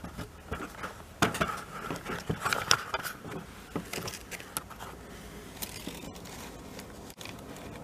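Handling noise: a clear plastic bag crinkling and e-bike display cables being moved about, a quick run of clicks and rustles over the first few seconds that then dies down.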